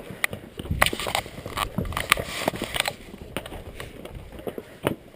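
Strong wind gusting across the microphone, a rough rumble with sharp crackles. It comes hardest from about a second in until nearly three seconds in.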